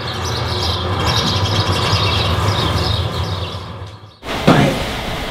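Field recording of a flock of small birds chirping and squawking in a bush, over a steady low hum. It cuts off suddenly about four seconds in.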